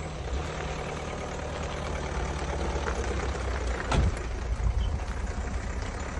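Small panel van's engine running as the van pulls away and drives off slowly, with a single thud about four seconds in.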